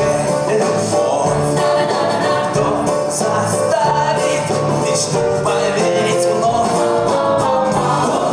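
A Russian-language song performed live: singing accompanied by acoustic guitar.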